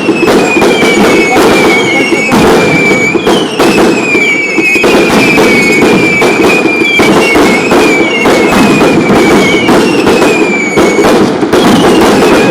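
Pyrotechnics going off densely: a continuous hissing rush, many sharp crackling bangs, and a whistle that falls slightly in pitch and recurs about every second or so.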